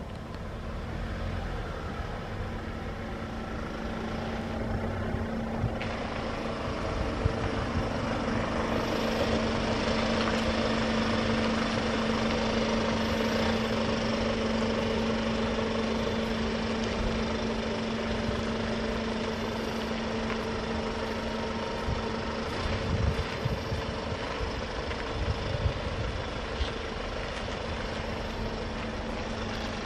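Electric subway train running on the line: a steady hum under a rumble that builds to its loudest about ten seconds in and slowly eases off, with a few clacks near the end.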